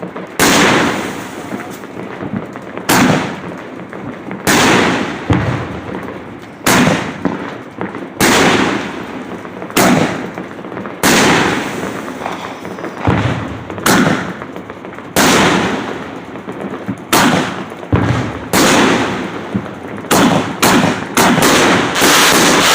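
500-gram nine-shot aerial firework cake (Sky Buster by Universal) firing: a series of sharp loud reports about every one to two seconds, each trailing off in crackling. The shots come faster and run together into a dense crackling burst near the end.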